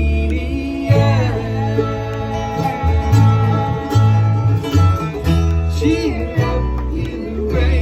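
A bluegrass string band playing live: picked guitar and other plucked strings over a bass line that steps from note to note.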